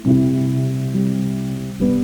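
Soft instrumental background music, its chords changing about once a second, over a faint hiss of rain.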